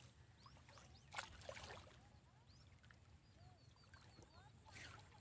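Near silence at a reservoir shore: faint bird chirps, with a quick run of small chirps about three and a half seconds in, and two soft washes of water against the rocks, the first and louder one about a second in.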